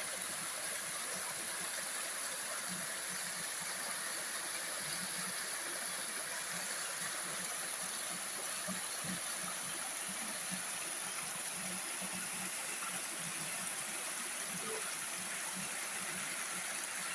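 Valley stream flowing, a steady rush of water.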